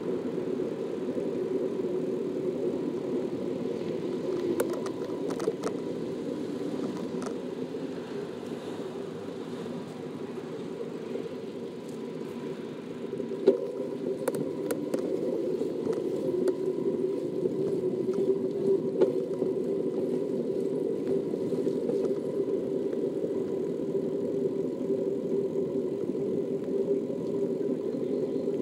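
Steady rolling rumble of a bicycle riding along a tiled sidewalk, with a few sharp knocks, the loudest about halfway through.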